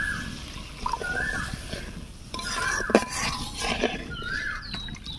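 Warm water poured into a kadai of fried spice paste and stirred in with a steel spatula, with a knock of the spatula about three seconds in. Over it a bird calls again and again, a short rising note every second or so.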